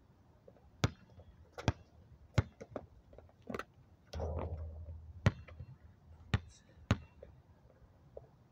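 A basketball bouncing on an outdoor court: about seven sharp bounces at uneven spacing, with a longer, duller noise about four seconds in.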